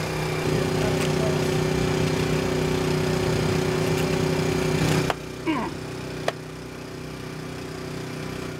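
A small engine running steadily, with a few sharp clicks. Its level drops abruptly about five seconds in.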